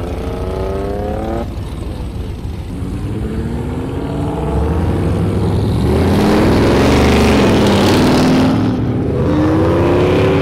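Cars accelerating past one after another down a cruise strip, their engine pitch rising. The loudest pass comes in the middle, with several engines overlapping under a rush of exhaust noise.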